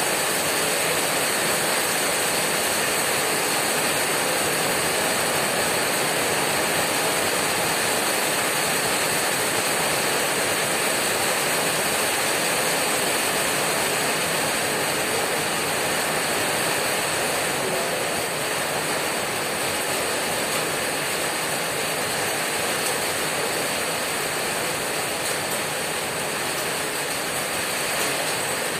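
Heavy rain drumming on a corrugated tin roof: a dense, steady clatter of drops on the metal.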